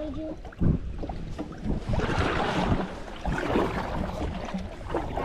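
Water splashing and lapping around a kayak on a river, with wind buffeting the microphone.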